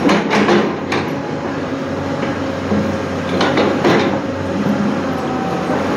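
Hyundai crawler excavator running with a steady engine and hydraulic hum, its steel bucket scraping and knocking against dirt and rubble: a few sharp knocks at the start, just before a second in, and again around three and a half to four seconds in.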